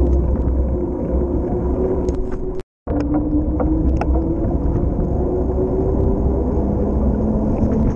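A mountain bike rolling along an asphalt cycle path: wind rumbles on the microphone over a steady hum from the tyres, which slowly sinks in pitch. About two and a half seconds in, the sound cuts out for a moment and then resumes.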